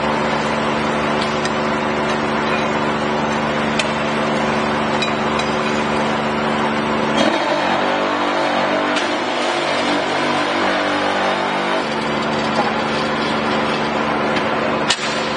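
Vibration motor of a semi-automatic manual concrete block machine running with a steady hum as the concrete in the mould is compacted. For about five seconds in the middle, while the press lever is pulled down onto the mould, the hum changes in pitch and tone. A few knocks are heard, a sharp one near the end.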